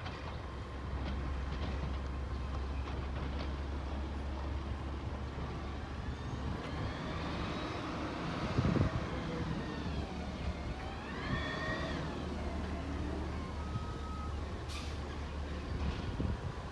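Street traffic and a distant garbage truck's diesel engine running, a steady low hum. A vehicle passes close by, swelling and fading about eight to nine seconds in, and a whine dips and rises in pitch around eleven seconds in.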